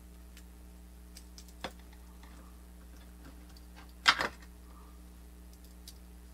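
Small clicks and ticks from a wire connector being pushed onto a circuit board in a plastic housing, with a louder short clatter of clicks about four seconds in. A faint steady electrical hum sits underneath.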